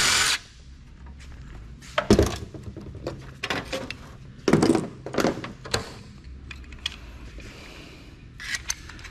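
Scattered thunks and clatters of metal computer parts being handled and dropped during teardown for scrap. There are about half a dozen separate knocks, the sharpest about two seconds in.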